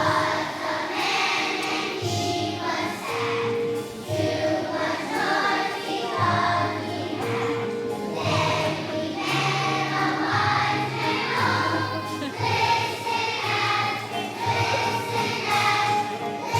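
A choir of young children singing a song with instrumental accompaniment.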